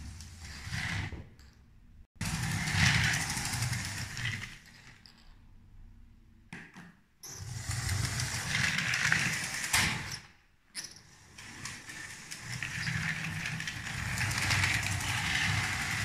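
Lego 7755 12-volt train running along plastic Lego rails, its motor and wheels making a steady mechanical whirr that comes in several swells broken by short quiet gaps.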